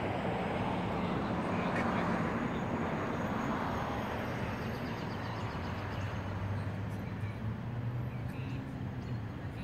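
A steady low hum under outdoor background noise.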